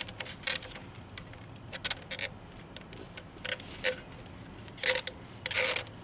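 Irregular sharp clicks and short rattles of small hard parts being handled and pried at, as the clips and retaining ring of a fuel filter assembly are worked on; the loudest rattles come just before five seconds in and again about a second later.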